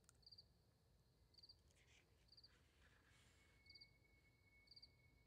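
Faint cricket chirping: short high chirps of a few quick pulses each, about one a second. A steady high whine comes in about halfway through.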